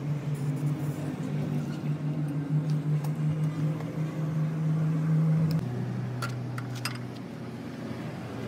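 A machine running with a steady hum that drops to a lower pitch about two-thirds of the way through, followed by a few sharp clicks.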